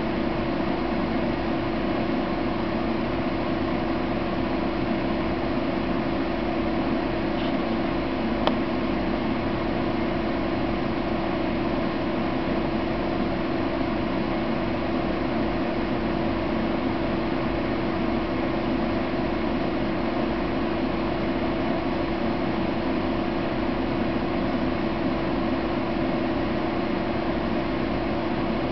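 Steady machine hum: a constant low tone under an even hiss, unchanging throughout, with one faint click about eight and a half seconds in.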